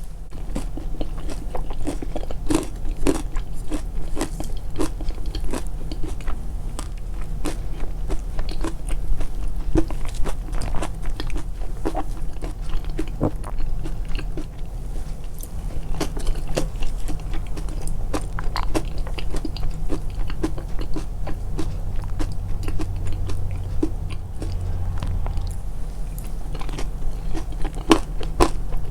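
Close-miked eating: mouthfuls of crunchy food being bitten and chewed, a steady stream of crisp crunches and mouth clicks.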